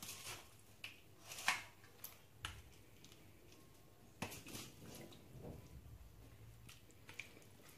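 Metal spoon scraping and clinking against a steel pot while scooping chicken korma, with soft wet squelches as the gravy-coated pieces are dropped onto rice. A few faint scrapes and clicks, the sharpest about one and a half seconds in.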